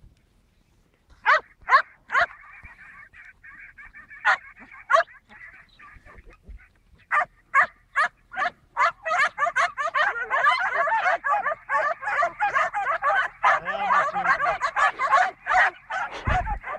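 Several dogs barking: sharp single barks at first, then a dense run of rapid barks and wavering yelps from about nine seconds in.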